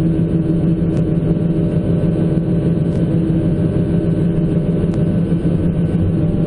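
John Deere 160C LC excavator's diesel engine running steadily under the operator's joystick work, which keeps the auto-idle machine revved up, with a constant-pitch hum.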